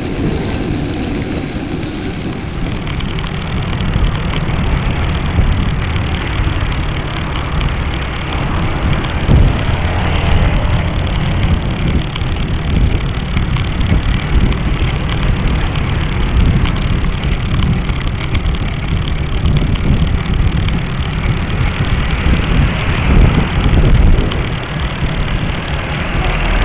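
Wind buffeting and road vibration on a bicycle-mounted mini action camera's microphone as the bike rides along a street: a steady low rumble with a noisy hiss over it, swelling louder about nine seconds in and again near the end.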